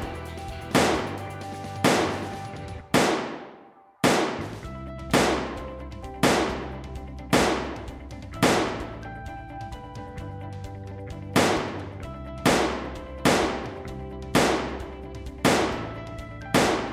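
Background music with a sharp percussive hit about once a second over held notes and a steady bass. It fades out about three seconds in, starts again a second later, and drops the hits for a couple of seconds near the middle.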